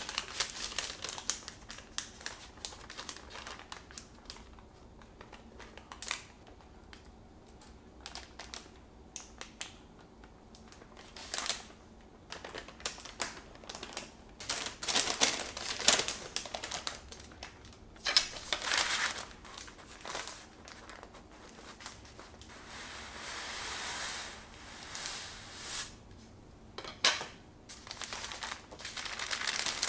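Parchment baking paper crinkling and rustling in irregular bursts as it is lifted, rolled and pressed around a sponge cake roll. There is a longer rustle about two thirds of the way through.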